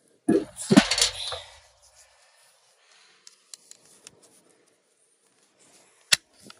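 A loud knock and rattle of tools being handled in the first second and a half, then a few light clicks and one sharp snip about six seconds in as aviation tin snips cut into a dismantled angle grinder.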